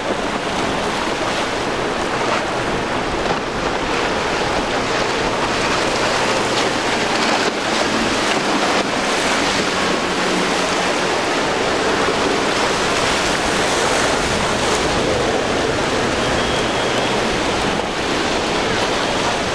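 Surf breaking and churning, with wind buffeting the microphone and the steady low drone of outboard engines on boats crossing the waves.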